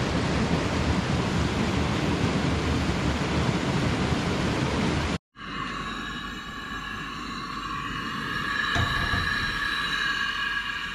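Waterfall: a steady rush of falling water. About five seconds in it cuts off abruptly and gives way to a quieter, steady high drone of several held tones.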